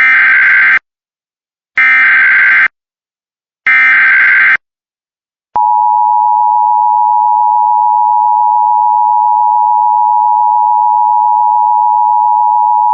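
Emergency Alert System SAME header: three short bursts of digital data tones, about two seconds apart. Then, about five and a half seconds in, the loud, steady two-tone EAS attention signal begins, marking the start of an emergency alert.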